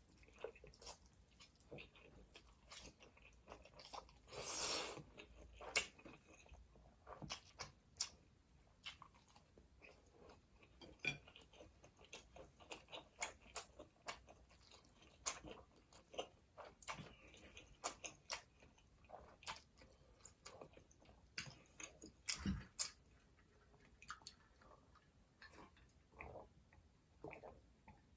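Close-miked chewing and biting of food, with many short wet clicks and occasional crunches. A longer, louder noisy sound comes about four to five seconds in.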